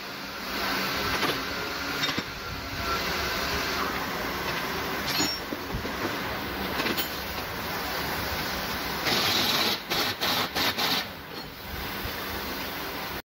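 Workshop noise during a suspension strut rebuild: a steady mechanical rattle with parts being handled. About nine to eleven seconds in, a pneumatic air tool gives a run of short bursts.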